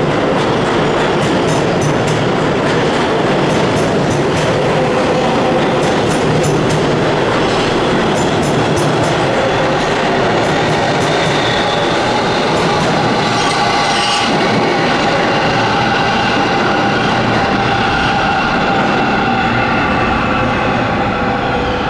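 New York City subway train running on the rails, a loud steady rumble with a whine of several steady tones. Clicks of wheels over rail joints come mostly in the first half, and higher tones join the whine after about twelve seconds.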